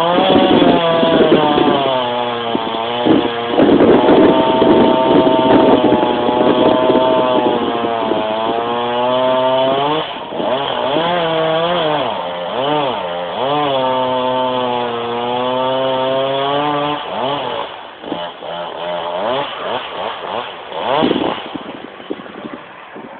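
Chainsaw running hard as it cuts a horse chestnut tree, its pitch holding steady for a few seconds at a time and then dipping and rising again. About three quarters of the way through it drops to quieter, shorter blips of throttle.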